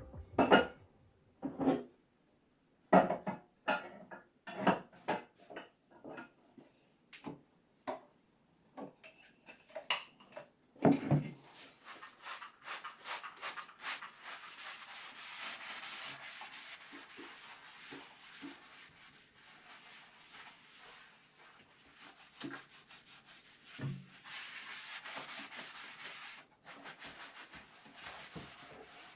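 Household cleaning sounds: scattered light knocks and clatters of things being handled, then, from about twelve seconds in, a steady rubbing as a surface is scrubbed or wiped, with an occasional knock.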